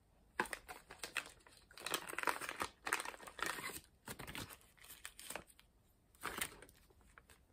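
Sunglasses packaging being handled and unwrapped: irregular rustling bursts, dying away near the end.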